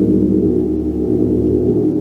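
Gong sounding in a sustained, steady wash of low overlapping tones as it is played continuously, with no distinct single strike standing out.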